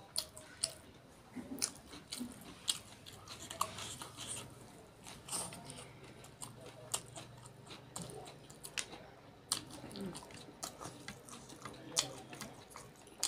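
A person chewing mouthfuls of hand-eaten rice and curry close to the microphone, with irregular sharp wet clicks and smacks of the mouth.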